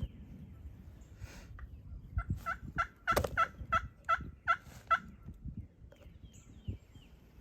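Turkey yelping: a run of about eight evenly spaced yelps, about three a second, each note dropping in pitch, over scattered low knocks and rustling in the leaves.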